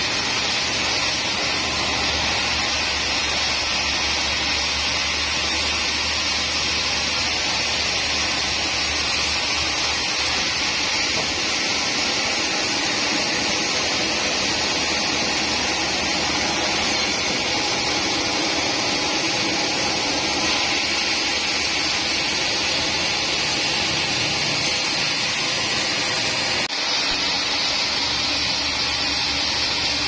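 Large sawmill band saw running steadily as it cuts lengthwise through a teak log fed on a carriage. It makes a loud, even, high-pitched noise over a low motor hum.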